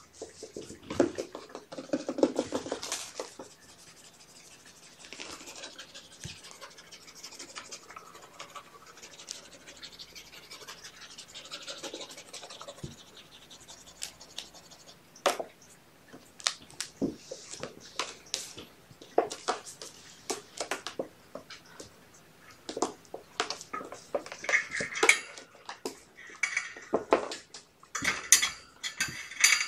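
Kittens scrabbling and scratching on and around a plastic scale tray, with scattered light clicks and knocks that get busier near the end.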